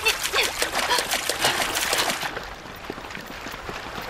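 Feet splashing through a shallow river as people run across it: quick splashes for about the first two seconds, then a quieter wash of flowing water.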